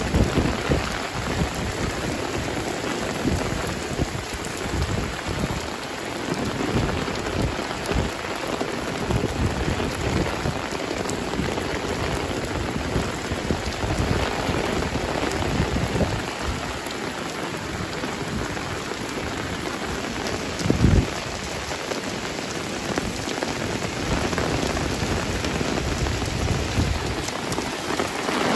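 Heavy rain pouring steadily onto the street and surrounding surfaces, a dense even hiss of falling water. About two-thirds of the way through there is a brief, loud low thump.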